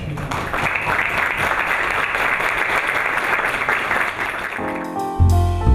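Audience applauding, dying away about four and a half seconds in. Music with a heavy bass comes in near the end.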